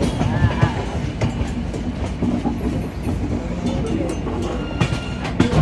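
Humsafar Express passenger coaches running on track: a steady rumble with the clatter of wheels over rail joints and a few sharp knocks, the loudest near the end.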